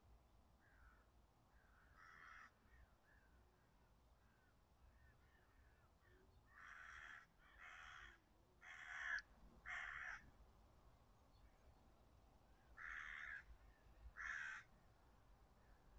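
A crow cawing, faint, in separate calls: one caw about two seconds in, a run of four caws between about seven and ten seconds, then two more a few seconds later.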